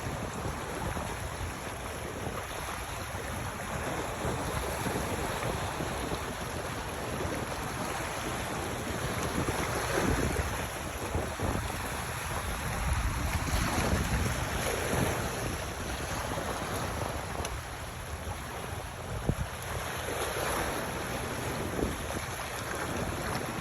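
Wind gusting over the microphone with sea water washing, rising and falling in surges.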